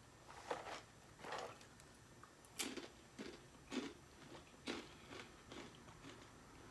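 Someone crunching and chewing crisp spicy corn snacks (Takis and Hot Fries): a run of short crunches, about one to two a second, with small pauses between bites.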